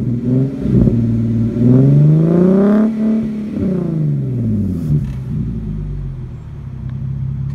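Infiniti G37's 3.7-litre V6 breathing through a Manzo axle-back exhaust and Z1 high-flow cats, revved with the car standing: a quick blip, then a long climb in pitch that peaks about three seconds in and falls away. It settles to a steady idle for the last couple of seconds.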